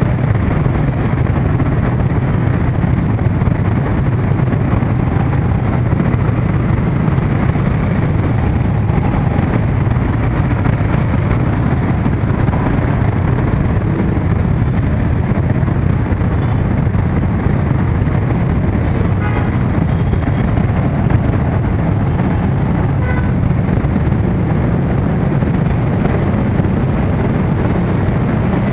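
Steady traffic noise in a jam of motorcycles and cars idling and creeping, with a constant low engine sound close by.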